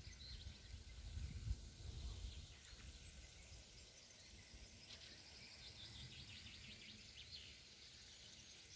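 Faint outdoor park ambience. Low wind rumble on the microphone in the first couple of seconds gives way to faint, scattered bird chirps.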